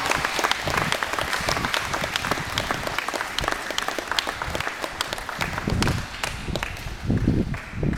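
Audience applauding with many hands clapping, the clapping thinning out and fading over the last couple of seconds.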